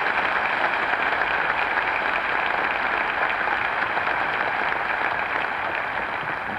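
A large audience applauding steadily, the clapping beginning to die down near the end.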